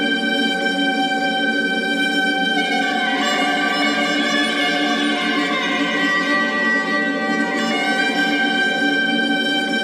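Droning music of held bowed-violin tones over a steady low drone. The higher notes shift about three seconds in and change back near the end.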